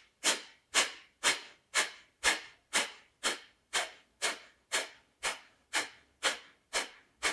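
Kapalbhati breathing: a woman's short, forceful exhales through the nose, each cut off sharply, in an even rhythm of about two a second, with silent passive inhales between.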